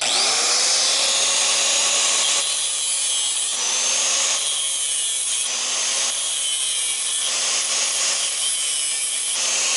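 Angle grinder with a cutting disc spinning up and cutting through welded steel wire mesh: a steady, high-pitched grinding over the motor's whine.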